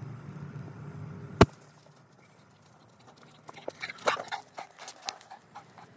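A low hum stops with one sharp knock about a second and a half in. Then come irregular crackling footsteps on dry fallen leaves and grass.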